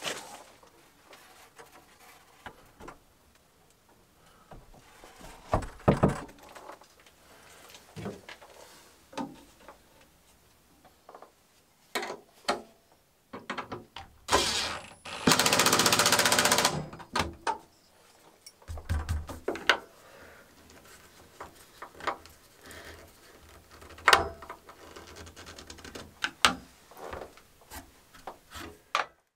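Scattered knocks and clunks as a plastic filter housing and its metal mounting bracket are handled and fitted to a wall, with a cordless drill-driver running hard for a couple of seconds about halfway through as it drives a mounting screw, then running more briefly just after.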